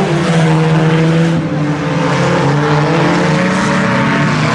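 IMCA Sport Compact race cars' four-cylinder engines running hard on track; the engine pitch dips about a second and a half in, as the cars lift for a turn, then climbs again as they accelerate.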